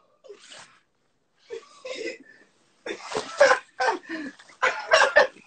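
A person's voice making several short breathy bursts, with no clear words.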